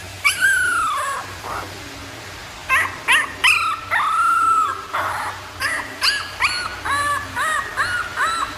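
Puppy whimpering and yipping: a long falling whine near the start and another around the middle, then a quick run of short, high yips toward the end.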